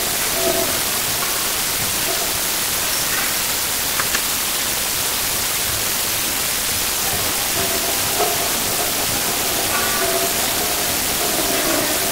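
Steady loud hiss, with faint high children's voices carrying in a large hall now and then, mostly in the second half, and a couple of soft knocks.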